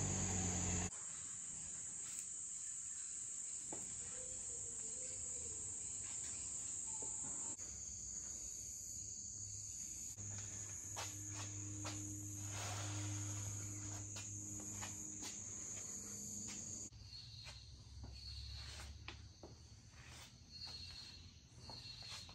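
Faint, steady high-pitched chirring of insects that shifts abruptly twice, with scattered light clicks and a low hum in the second half.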